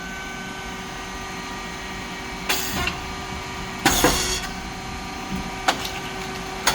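Rice cake popping machine running: a steady hum from its motor and hydraulic pump, broken by two short, loud hissing pops about a second and a half apart, typical of the heated moulds opening as the rice cakes puff, and a sharp click near the end.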